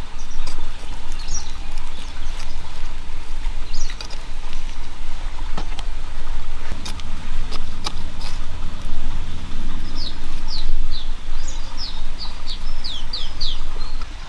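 Small hand hoe digging into dry, lumpy soil, with scattered sharp clicks and crumbling clods over a steady low rumble. Small birds chirp in quick runs of short falling notes over the last few seconds.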